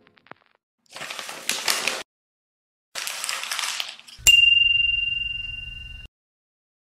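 Two short hissing swishes, then a single bright metallic ding that rings on and fades for nearly two seconds before cutting off suddenly.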